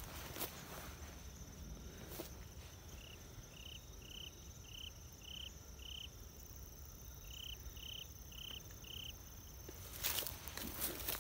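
Footsteps on grass and dry leaves at the start and again near the end, with a pause between them in which ten short high chirps sound about every half second, in two runs of six and four.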